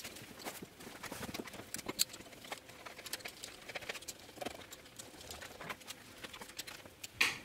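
Irregular light clicks and knocks, as of tools and metal parts being handled, with one louder knock near the end.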